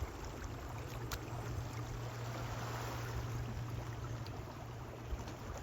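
Steady outdoor waterside noise: a wash of water and wind with a low steady hum under it, and a small click about a second in.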